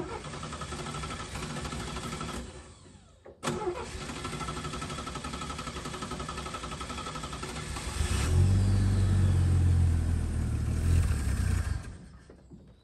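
Squarebody Chevy K10 pickup's inline-six engine on a one-barrel carburetor catching and running, fading out after a couple of seconds and catching again, then given gas and running much louder for about four seconds before dying away near the end. It stalls whenever given gas, which the owner puts down to a shot accelerator pump and a carburetor out of whack.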